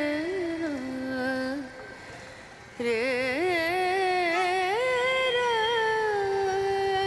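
Music: a single voice sings a slow melody with long held notes joined by wavering, ornamented slides. It drops away briefly about two seconds in, then returns.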